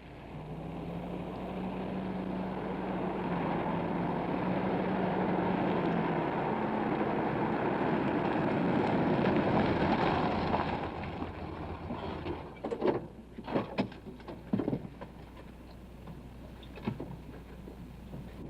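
A steady rushing, engine-like noise with a low hum swells and then dies away about ten seconds in. It is followed by a string of sharp clicks and knocks, and a loud thump at the very end.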